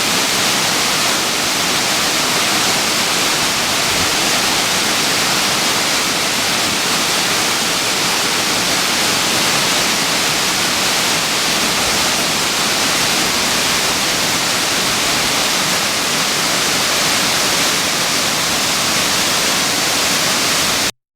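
Waterfall running full after heavy rain: a steady, loud rush of falling water that cuts off abruptly near the end.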